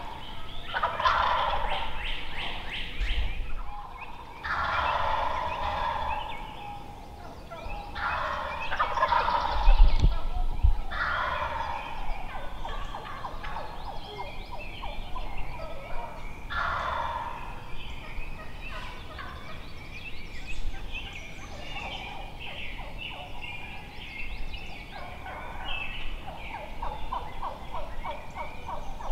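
Wild turkey gobblers gobbling again and again, a loud gobble every few seconds at first, then fainter, more frequent gobbling. A dull thump sounds about a third of the way through.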